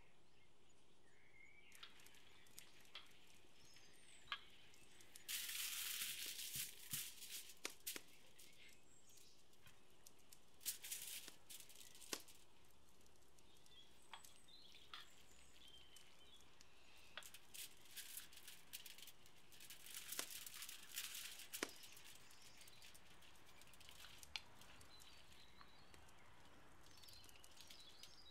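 Aluminium foil crinkling and rustling under a whole milkfish as it is handled, in three short bursts with scattered small clicks between them. Faint bird chirps come now and then.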